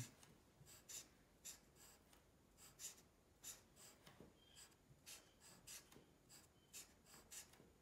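Black felt-tip marker drawing small squares on paper: faint, short scratchy strokes, about two a second.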